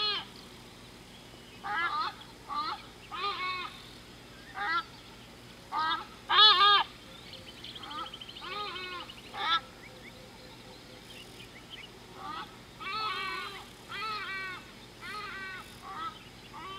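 Large birds calling: short, loud, harsh calls of one to several notes, repeated about every second, the loudest about six and a half seconds in.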